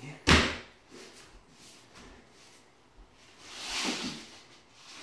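A single sharp knock about a quarter-second in, then a scraping swish that swells and fades about four seconds in as a long laminate plank is slid across the foam underlayment.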